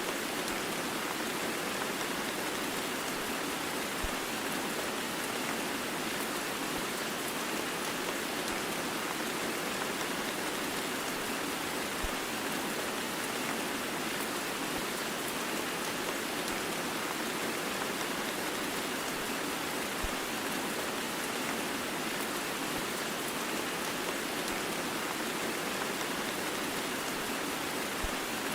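Heavy rain blended with white noise: a steady, unbroken hiss of falling rain with no change in level.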